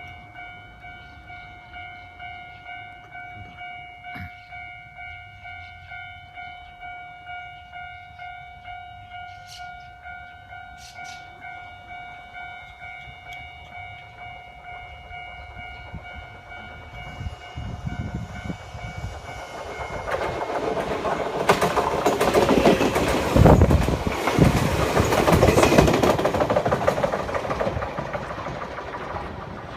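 Japanese level-crossing alarm ringing its repeating electronic bell, about one and a half strokes a second, as a Nagano Electric Railway Yukemuri limited-express electric train comes up and passes over the crossing. The train's rumble builds from about halfway in and is loudest, with heavy wheel clacks, about three-quarters of the way through, then fades.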